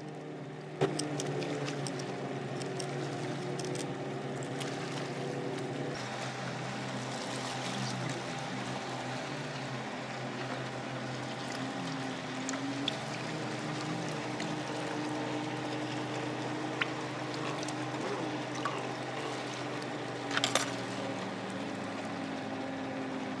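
Water sloshing and dripping as a whole pomfret is rinsed by hand in a bowl of water, with a few sharp snips of kitchen scissors trimming its fins. A steady low hum runs underneath.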